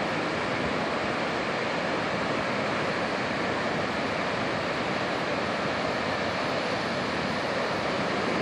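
Steady roar of ocean surf, waves breaking and whitewater washing toward the shore, holding an even level throughout.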